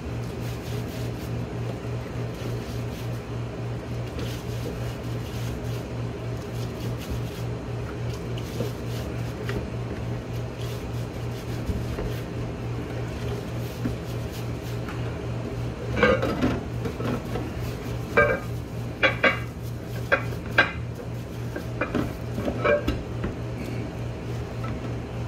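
A steady low hum runs throughout. About two-thirds of the way in, a string of sharp clinks and knocks starts as transmission valve body parts are handled and scrubbed in a plastic tub of mineral spirits.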